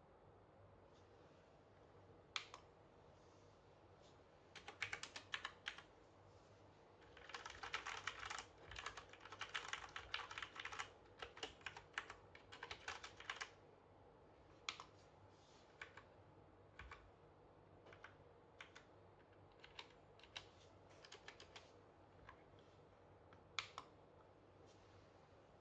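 Typing on an Ajazz AK60 mechanical keyboard with Cherry MX Brown switches. A single keystroke, a short flurry of presses, then about six seconds of fast continuous typing, followed by separate single key presses spaced about a second apart.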